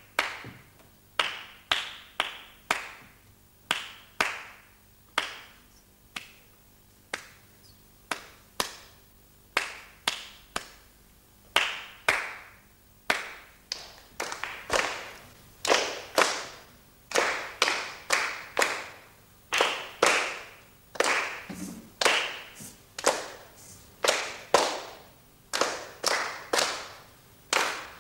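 Hand clapping of a rhythm in two-four time: one person claps a four-phrase rhythm pattern, then, about halfway through, a group of children claps the same pattern back in unison. The strokes come in short groups with brief pauses between phrases.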